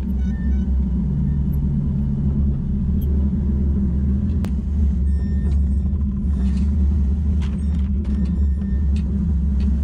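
Fishing boat's engine running with a steady low rumble.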